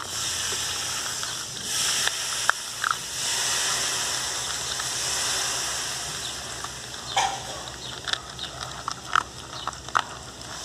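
Pinscher puppies eating dry kibble from a plastic bowl, with a steady hiss for the first several seconds, then a run of short crunches and clicks of chewing and kibble moving in the bowl.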